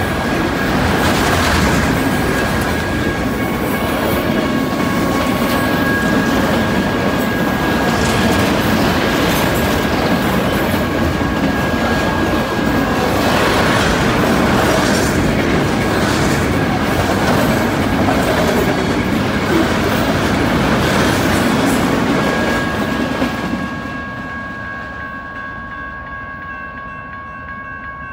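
Long freight train of autorack cars rolling past, with a steady rumble and clatter of wheels on rails. Near the end the noise fades as the last cars pull away, leaving faint steady high tones.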